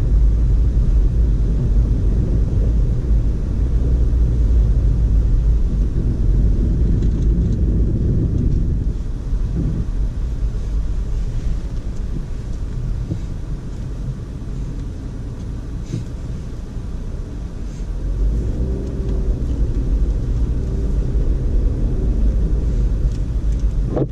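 2012 Audi A4 Quattro driving on a snowy road: a steady low rumble of engine and tyres. It eases off about nine seconds in and builds again near eighteen seconds.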